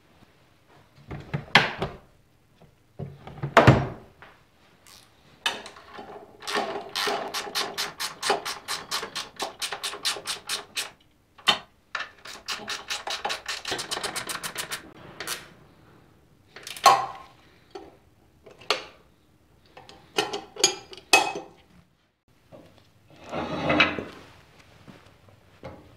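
Socket ratchet clicking in two long runs of rapid, even clicks, the second run faster, as bolts are tightened at a trike frame's handlebar mount. Separate clunks and knocks of metal parts and tools come before and after.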